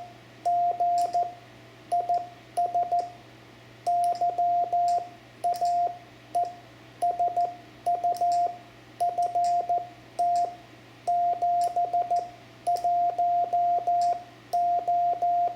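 Morse code (CW) sidetone from a Yaesu FT-710 transceiver: a single mid-pitched tone keyed on and off in dits and dahs, grouped into letters and words, spelling out the station's rig. Faint clicks come with the keyed groups.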